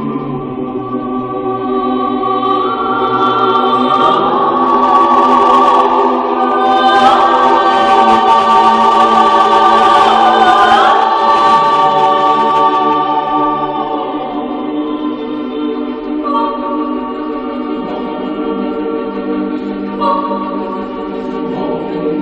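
Choir singing slow, long-held chords, swelling louder about four seconds in and easing back after about thirteen seconds.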